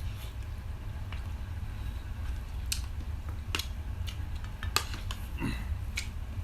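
Close-up eating sounds during a meal: chewing, with a few sharp clicks of utensils or food against a plate, over a steady low hum.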